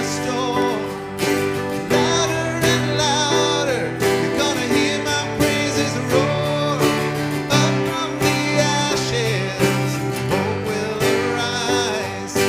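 Live worship band: strummed acoustic guitar and keyboard with a steady drum beat, under sung vocals.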